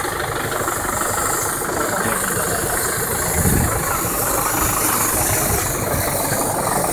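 Tractor diesel engine idling steadily, with a brief low rumble about halfway through.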